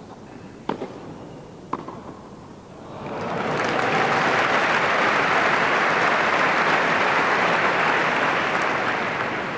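Two sharp hits of a tennis ball on racket strings about a second apart, then a large crowd applauding, swelling in about three seconds in and starting to fade near the end.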